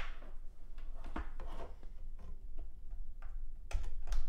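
Light clicks and rubbing as a power-supply cable and its plastic connector are handled, with a louder cluster of clicks near the end.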